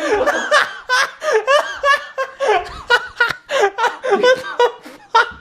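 People laughing, with some unclear talk mixed in.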